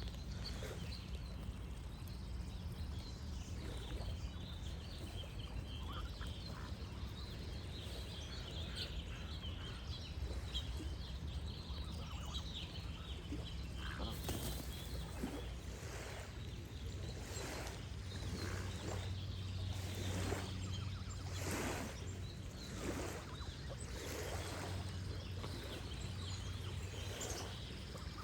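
Geese honking, harsh calls repeated about once a second through the second half, with small birds chirping and a steady low wash of gently running water.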